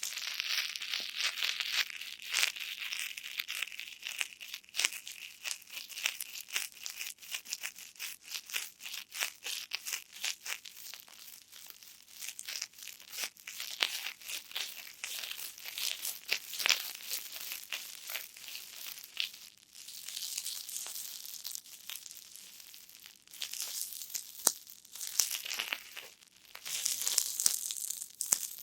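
Star-shaped foam cushioning sponges squeezed by hand again and again, with a squishy, fizzing crackle. The squeezes come in waves with short lulls between them.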